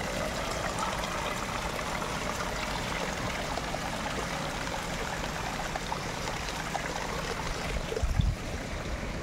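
Running water, a steady even rush like a small stream or waterfall, with one brief low thump about eight seconds in.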